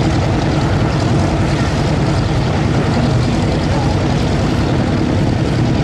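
Rolls-Royce Merlin piston aero engines of a WWII propeller warbird in flight, running with a loud, steady drone.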